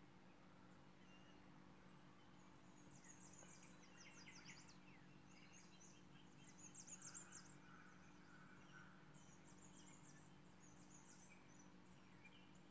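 Near silence: faint high chirping and trilling in the background, a little stronger about two thirds of the way in, over a low steady hum.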